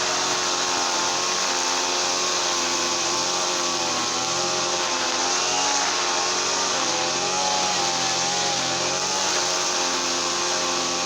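Small two-stroke petrol engine of a brush cutter running steadily at working speed, its pitch wavering slightly.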